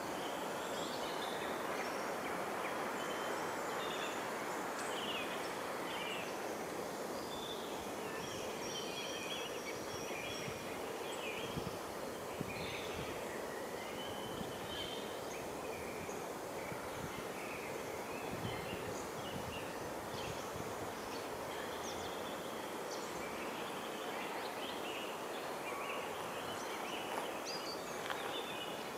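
Woodland ambience: a steady rushing background noise with many small birds chirping and calling in short, high-pitched notes scattered throughout.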